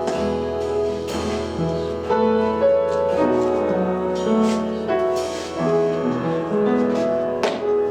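Instrumental music: held chords on piano or keyboard, changing about every half second to a second, with light percussion strokes.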